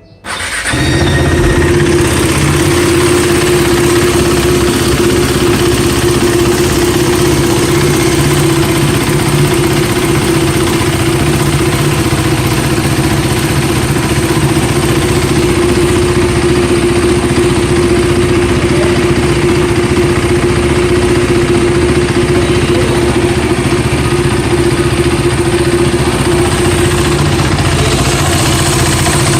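KTM Duke 390 single-cylinder engine idling steadily, setting in suddenly about half a second in. Its intake camshaft and a worn rocker arm have just been replaced, and the valve-train ticking is, in the owner's words, 90% resolved.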